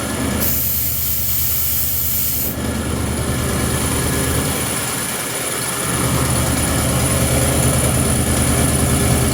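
Freshly rebuilt Ford 351 small-block V8 running steadily on a portable air compressor. A loud hiss cuts in about half a second in and stops about two seconds later, and the engine note grows heavier and a little louder about six seconds in.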